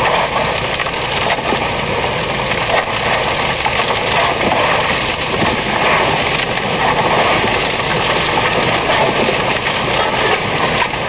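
A Vortxrex dryland dredge running steadily: the engine-driven pump drones, and water and gravel rush through the suction nozzle and hoses.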